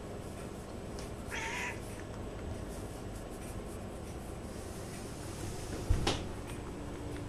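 Domestic cat giving one short meow about a second and a half in. A sharp thump comes near the end, the loudest sound, followed by a faint steady hum.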